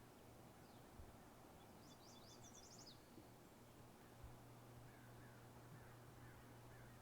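Near silence with faint bird chirps: a quick run of high chirps about two to three seconds in, then softer, lower chirps near the end, over a faint steady low hum.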